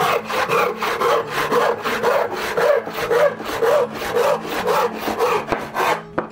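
Handsaw crosscutting a wooden board in a quick, even rhythm of rasping push-and-pull strokes, which stop near the end as the cut is finished, followed by a short knock.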